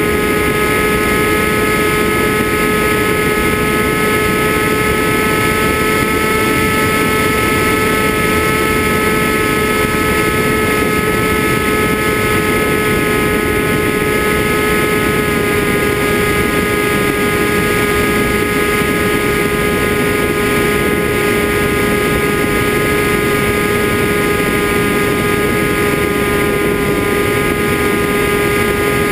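FPV drone's motors and propellers running at a steady throttle: a constant high whine with a hissing rush under it, the pitch edging up at the start and holding level throughout.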